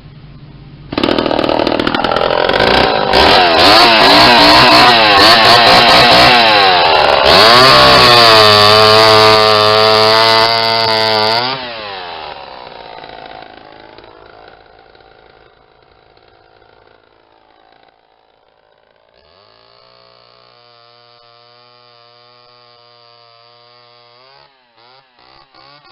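Restored 1970s Homelite two-stroke chainsaw revved hard, starting about a second in, for around ten seconds with its pitch rising and falling. It then drops back and settles to a quiet, steady idle.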